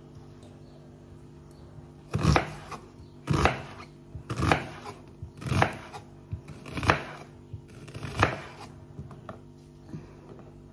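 Chef's knife chopping onion on a wooden cutting board: about six sharp knocks of the blade against the board, roughly one a second, starting about two seconds in, with a few fainter taps between.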